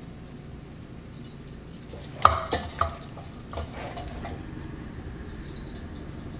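Garlic salt shaker being shaken and tapped over chicken: a handful of light clicks and knocks with a short ring, about two to three and a half seconds in, over a low steady room hum.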